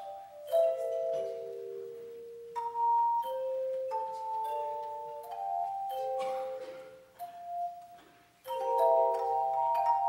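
Children's handbell choir ringing a tune: struck chords of bell tones that ring on and overlap. A brief lull comes about eight seconds in, then a loud chord.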